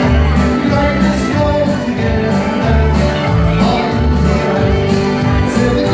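Live country-style dance music played loud through a PA, with held melody notes over a steady, regular bass beat.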